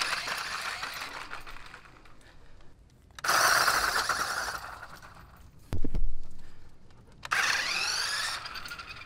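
Toy-grade electric RC car taking off from a standstill three times, each a sudden burst of small-motor and gear whine with tyre noise that fades as the car drives away; the last one has a rising whine. A single knock comes just before the third takeoff.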